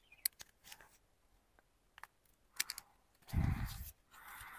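Plastic toy gun clicking faintly and sharply several times as it is handled and its trigger is worked. It makes no motor or sound effect: the toy isn't working, and the adult takes it to need a battery put in. A louder dull bump comes about three seconds in.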